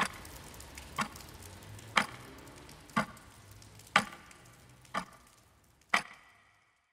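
Sharp ticks, one each second and evenly spaced, over a faint background that fades away near the end.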